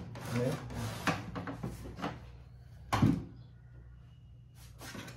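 Knocks, rubbing and clatter from a plastic toner cartridge and drum unit being handled against the top of a laser printer and the workbench. The loudest knock comes about three seconds in.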